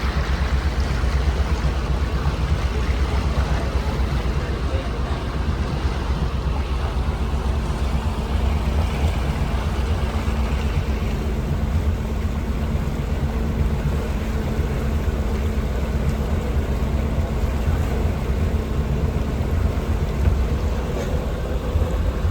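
Motorboat engine running at a steady cruise, with a dense low rumble under its even hum.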